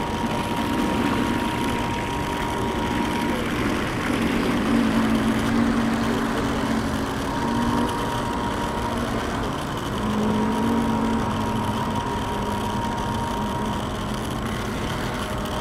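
Radio-controlled model boat motors running, their pitch drifting up and down over a steady wash of noise.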